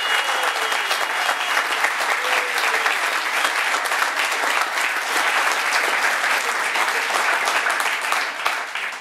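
Live audience applauding: dense, steady clapping that starts to die down near the end.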